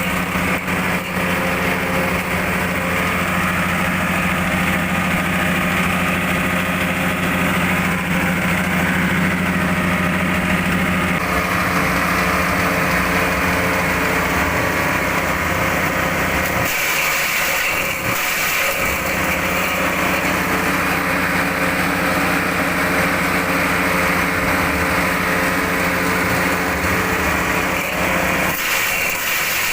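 Forage chopping machine running steadily, driven by a small engine, with a constant hum; its tone shifts a few times.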